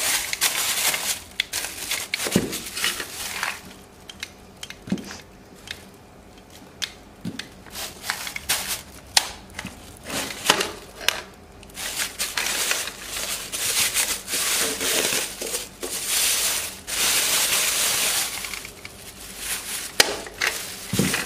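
Thin plastic bags crinkling and rustling as they are handled, in bursts, with several sharp clicks.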